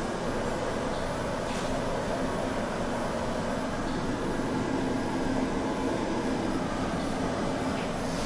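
Metal color sorting machine running, a steady mechanical noise with a faint low hum.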